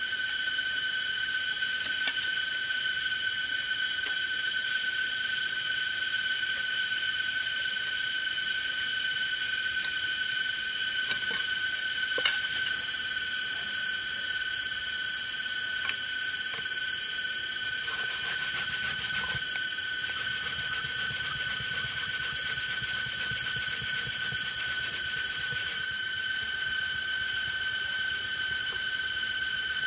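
Steady high-pitched droning of forest insects, several pitches held together without a break. Under it come faint scattered taps and scraping of a machete working a green bamboo tube.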